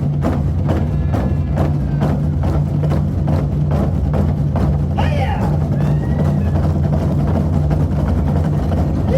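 Korean buk drums struck in unison by a drum troupe, a steady beat of about two or three strokes a second over a backing music track. The drumming stops about five seconds in, leaving the music with a few rising and falling pitched sounds.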